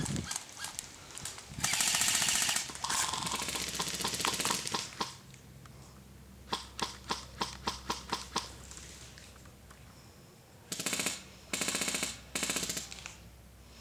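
Airsoft electric rifles firing, a CYMA M14 among them: two long full-auto bursts of rapid ticking, then a string of about eight single semi-auto shots at roughly four a second, then three short full-auto bursts near the end.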